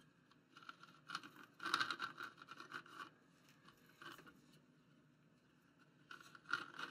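A plastic knife scraping along the rim of a small metal pie pan while trimming raw pie-crust dough, in a few short scratchy spells with pauses between them.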